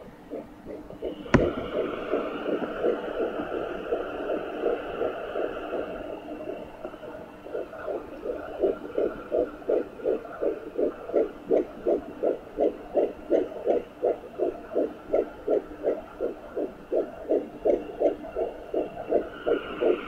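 Sonaline B pocket fetal Doppler picking up a fetal heartbeat at about ten weeks: a fast, even pulse of about three beats a second, faint at first and growing clear and strong after about eight seconds. A sharp knock about a second in.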